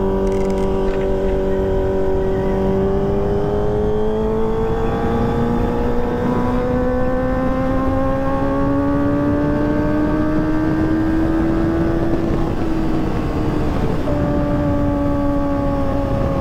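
Kawasaki ZX-25R's 250 cc inline-four through a ProLiner TR2 full-system exhaust, its pitch climbing slowly and steadily as the bike accelerates in one gear. About twelve seconds in the revs drop at a gear change, and it carries on at a lower pitch.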